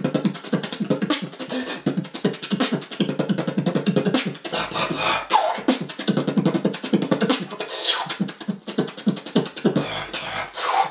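Solo human beatboxing: a fast, dense stream of mouth-made kick, snare and hi-hat sounds, with a few sliding pitched sweeps, around the middle and near the end, and a couple of short breaks in the beat.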